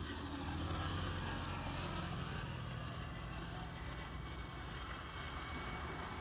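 Car engine hum over road noise, loudest about a second in and slowly fading.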